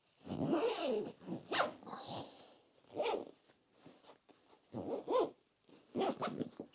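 Zipper of a fabric packing cube being pulled closed in several short strokes, each a rasp whose pitch rises and falls as the pull speeds up and slows round the corners.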